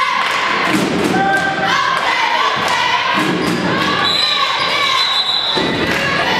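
A basketball bouncing and thudding on a hardwood gym floor during play, with players' voices calling out, echoing in the gym.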